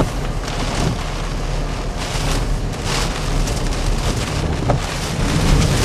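Hurricane-force wind blowing in gusts with driving rain, and the wind rumbling heavily on the microphone; the gusts rise and fall and are strongest near the end.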